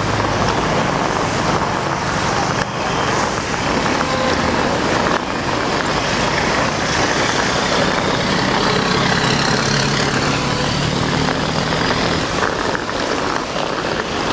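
Road traffic: cars driving on a wet road, a steady wash of noise.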